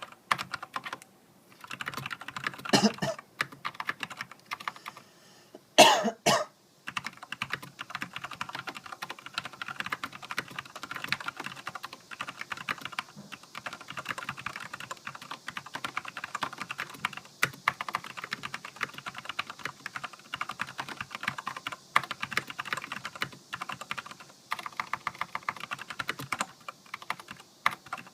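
Typing on a Filco Majestouch mechanical keyboard with linear Cherry MX Black switches and heavy keycaps: a fast run of keystrokes with brief pauses. There are two louder bursts, about three and six seconds in.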